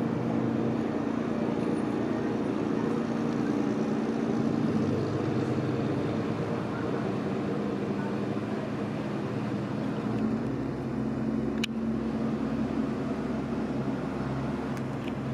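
Engines of a small high-speed passenger boat running steadily as it pulls away from the pier, a continuous drone whose low hum deepens about ten seconds in.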